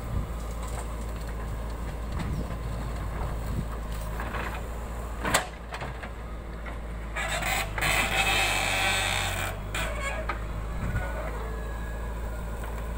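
JCB 3DX backhoe loader's diesel engine running steadily as it works its backhoe bucket in soil, with a sharp knock about five seconds in and a loud rush of noise lasting a couple of seconds around the middle.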